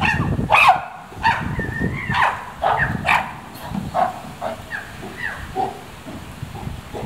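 A chimpanzee calling: a run of loud, high calls about two a second, each rising and falling in pitch, growing fainter and lower toward the end.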